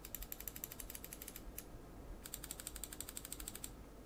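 Left and right main buttons of a Redragon M808 Storm gaming mouse clicked rapidly: two quick runs of light, crisp clicks with a single click in the pause between them. The unnamed switches sound a little Omron-like.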